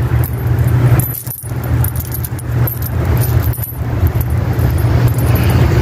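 Metal chain leash and its clasp jingling and clicking as hands work the clip, over a steady low rumble.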